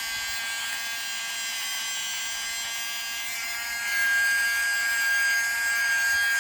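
Handheld 9-volt keyboard vacuum cleaner's small electric motor running with a steady high whine. It gets louder about four seconds in.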